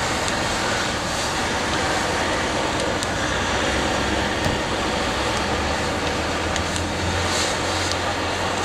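Steady rushing noise of a burning truck mixed with passing road traffic, with a deeper engine hum growing in the second half.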